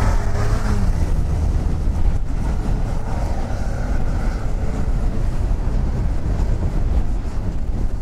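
Off-road vehicle engines running on a snowy hill-climb under heavy wind noise on the microphone; an engine's pitch falls during the first second or so as it comes off the revs.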